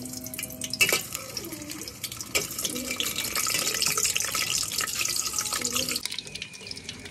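Hot cooking oil sizzling and crackling as peeled boiled eggs are dropped into an aluminium pot and fried, with a sharp clack about a second in. The sizzle eases about six seconds in.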